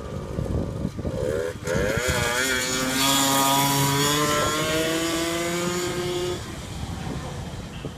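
An engine revving: its pitch dips, then climbs slowly and holds for several seconds before dropping away about six seconds in.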